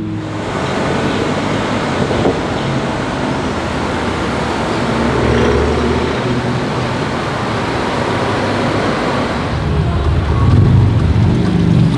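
Street traffic: cars running by, a steady mix of engine and road noise.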